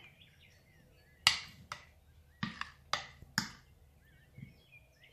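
Kitchen utensil tapping against a bowl of batter: five sharp taps over about two seconds. Faint birds chirp in the background.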